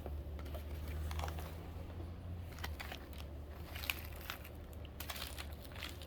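Plastic treat packaging crinkling, with scattered small clicks and crackles as it is handled and pecked at, over a low steady hum.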